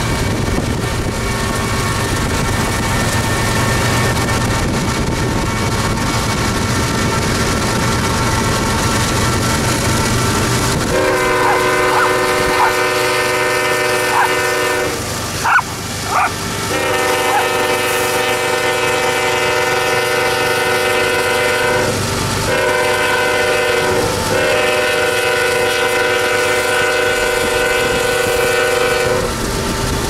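Rumble of a passing diesel freight train, then its air horn sounds in long chord blasts from about a third of the way in, with brief breaks. A dog barks sharply a few times while the horn sounds, loudest around the middle.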